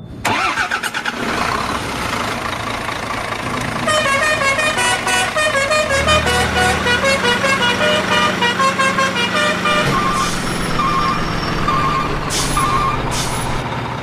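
Truck engine running steadily, with a multi-tone musical horn playing a tune over it from about four seconds in.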